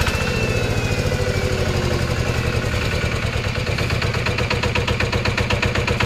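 Yanmar SS80 single-cylinder horizontal diesel engine running steadily and unloaded, with a regular, even firing beat.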